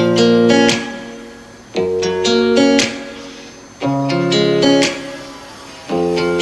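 Background music: acoustic guitar strummed in repeating chord phrases, each starting about every two seconds.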